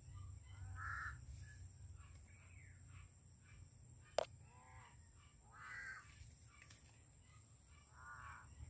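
Crows cawing faintly, several separate caws a second or two apart. A single sharp click about four seconds in, with a steady high-pitched tone underneath.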